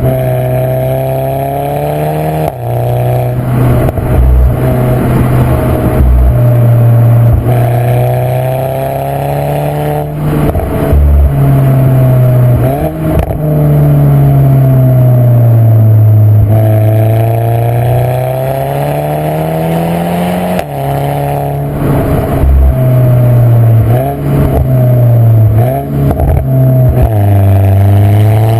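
Volkswagen Scirocco R's 2.0-litre turbocharged four-cylinder engine running loud under throttle. Its pitch rises and falls again and again, with several abrupt breaks and short clicks along the way.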